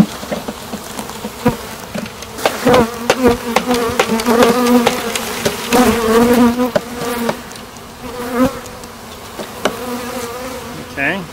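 A mass of honeybees buzzing loudly and close by as a package of bees is shaken out of its wooden cage into the hive box. Several sharp knocks come as the package is jarred to dislodge the clustered bees.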